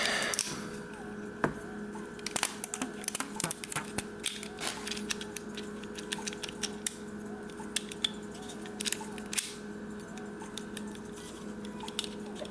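Small plastic clicks and taps, scattered irregularly, from a BMW seat belt extender arm being handled and tested after its broken hand was refixed with a screw. A steady low hum runs underneath.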